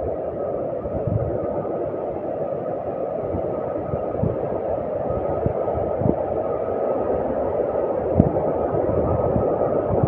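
Steady rush of a large waterfall's falling water, with a few soft thuds.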